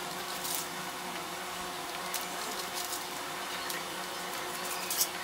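A fillet knife sawing through a baked seitan loaf, making faint, short scraping strokes every second or so. A steady low hum runs underneath.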